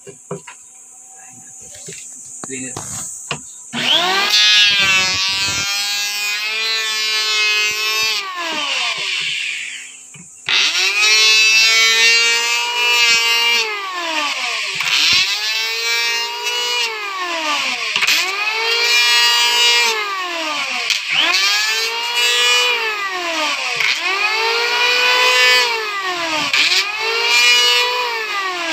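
Electric hand planer: a few light clicks, then the motor is switched on about four seconds in, winds down and stops near the ten-second mark, and starts again. It then runs through repeated passes along a wooden strip, its whine rising and sagging in a regular cycle about every second and a half, with blades the owner finds dull.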